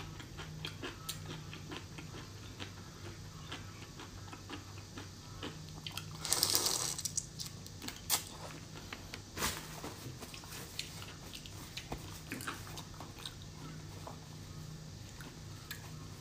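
Close-miked eating of a whole shell-on shrimp: many small crackling clicks from biting and chewing the shell. A brief louder rush of noise comes about six seconds in, with a sharp click just after, over a steady low hum.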